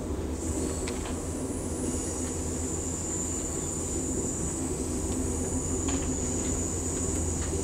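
Amtrak Coast Starlight passenger train rolling downgrade, heard from on board: a steady low rumble of the moving cars, with a high, steady wheel squeal coming in about half a second in and a few faint clicks.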